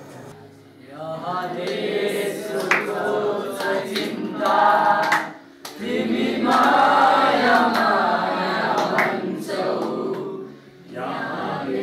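A group of voices singing a song together in phrases of a few seconds, with short pauses between them.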